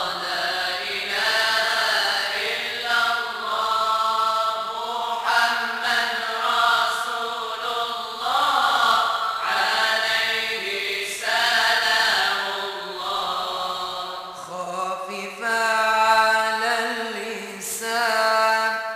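Group of voices chanting Moroccan madih, devotional praise song for the Prophet, in long held notes that bend and slide.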